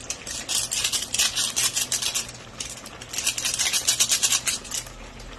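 A small seasoning sachet crinkling as it is shaken and squeezed over the pan, the granules sprinkling out, in two spells of quick rustling, the second starting about halfway through.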